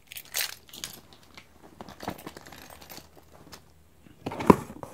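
Light handling noise: scattered small clicks and rustles, with a sharper knock about four and a half seconds in.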